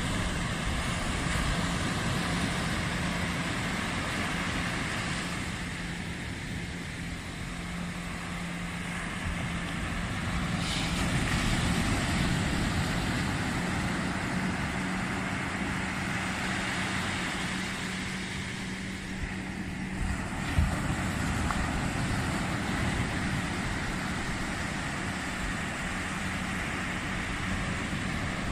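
Small waves breaking and washing up a sandy beach, the sea noise swelling and easing over several seconds, with a steady low hum underneath.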